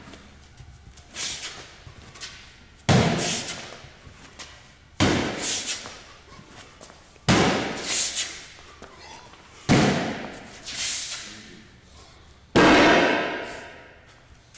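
Five heavy sandbags, thrown one after another over a bar, hit a concrete floor: five loud slams about two to three seconds apart, each echoing round a large hall.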